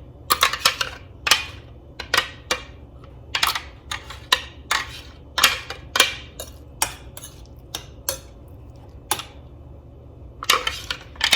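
A utensil clinking and tapping against a bowl while stirring a mixture, in irregular strokes with a short lull about three-quarters of the way through.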